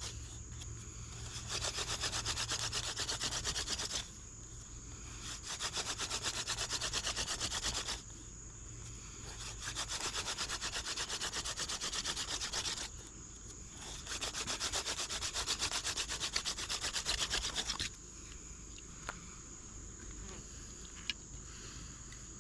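Hand-drill friction fire: a plant-stalk spindle, thought to be horseweed, spun between the palms in a wooden fireboard, making a fast scratchy rubbing. It comes in four bouts of about three seconds with short pauses between, as the hands go back up the spindle, and stops about 18 seconds in. This is an attempt to raise an ember.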